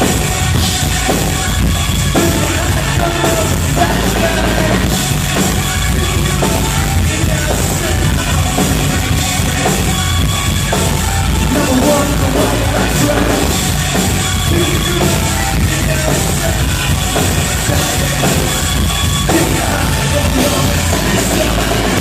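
A rock band playing a song live at full volume: a drum kit keeps a steady beat under dense, heavy instruments.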